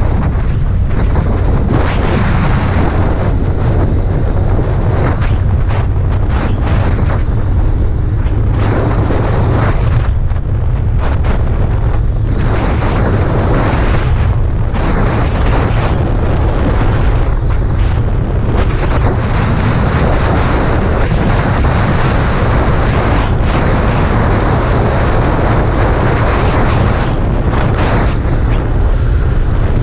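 Heavy wind buffeting the microphone of a moving motorcycle: a loud, steady rumbling rush.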